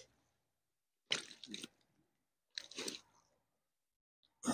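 Three short wet squishing sounds, at about one second, near three seconds and near the end, as a large mirror carp is gathered up by hand to be lifted.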